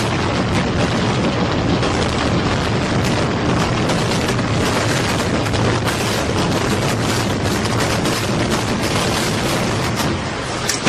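A burning multi-storey building collapsing: loud, dense rumbling and crackling with many sharp cracks throughout.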